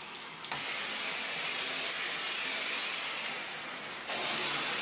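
High-pressure water jet from a handheld shower head's built-in power-wash nozzle spraying hard into a bathtub and down the drain, a steady hiss. It starts about half a second in and gets louder about four seconds in.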